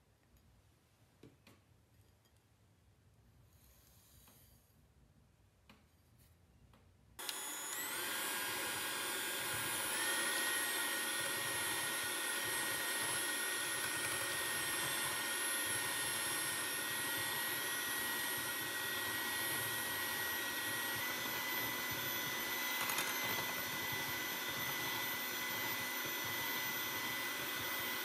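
Electric hand mixer switched on about seven seconds in after a few faint clicks, its motor running with a steady whine that steps up in speed twice in the first few seconds as the beaters whip raw eggs in a glass bowl.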